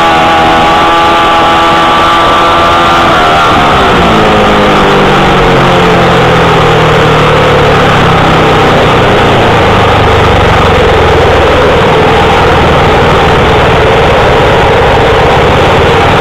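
Onboard sound of a grasstrack racing motorcycle engine at high revs. Its pitch holds steady for about three seconds, then drops over the next few seconds as the revs come down. It then runs lower and rougher under a loud rushing noise.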